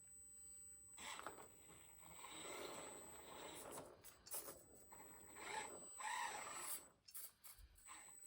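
Small 1/24-scale SCX24 rock crawler working over a course, its tyres and chassis scraping and rubbing on the obstacles in uneven spells, faint, with a thin steady high whine underneath.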